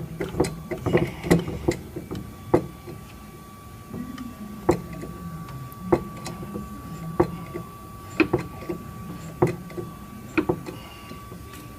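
Frame-straightening equipment working on a vehicle frame rail: sharp metallic clicks, quick at first, then settling to about one a second, over a faint steady tone and a low hum.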